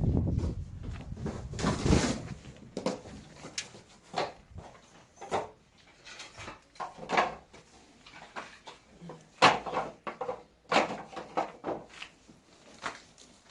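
Irregular knocks and clatters, like objects being handled and set down, with a louder low rumble in the first two seconds.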